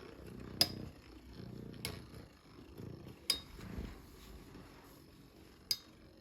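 Metal Beyblade tops, Lightning L-Drago 100HF against Earth Eagle, spinning in a plastic stadium with a low whirr, clashing with four sharp metallic clinks.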